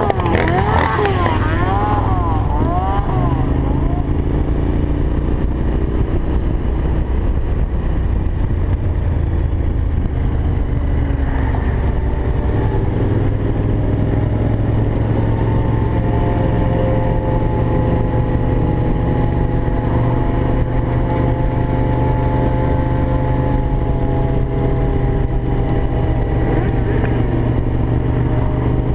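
Several vehicle engines, motorcycles among them, running together, idling and revving with slow rises and falls in pitch. A fast-wavering wail, like a siren or electronic horn, sounds over them for the first few seconds and fades out.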